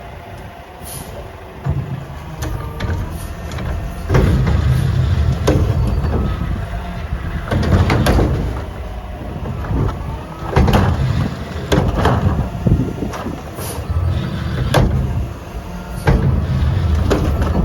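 Mack LR garbage truck running close by, with gusty wind buffeting the microphone in heavy low rumbles and sharp sudden hits.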